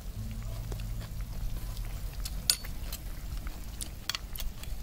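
Metal ladle clinking against a plate and an aluminium pot as soup is served: a few short sharp ticks, the loudest about halfway through and a quick cluster near the end, over a low steady hum.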